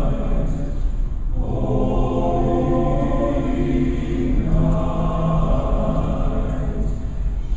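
Large men's chorus singing long held chords in several parts, with a brief break between phrases about a second in and again near the end.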